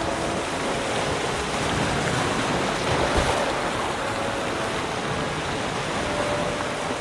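Ocean surf washing onto a beach, a steady rushing of waves with a slight swell about three seconds in.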